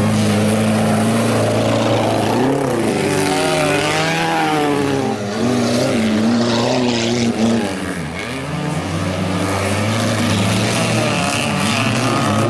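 Stock-car engines racing on a dirt track, their pitch climbing and falling again and again as the cars accelerate and lift through the corners, with a brief drop near the middle. A steady low hum runs underneath.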